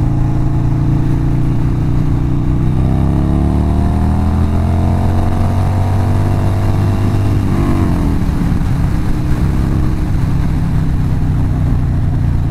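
Harley-Davidson Sportster 48's air-cooled V-twin engine under way, its pitch rising steadily for about five seconds as the bike accelerates. The pitch drops sharply about eight seconds in, then the engine runs steady at the lower note.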